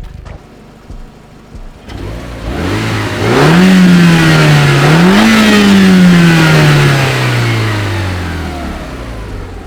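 Renault Megane 225's 2.0-litre turbo four-cylinder with a Bastuck cat-back exhaust, accelerating hard. The revs climb steeply, sag, then rise once more, and then the note falls steadily and fades away as the car drives off.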